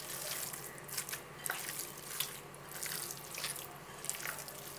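Wet, irregular squelching of a bare hand squeezing and kneading minced chicken momo filling in a bowl.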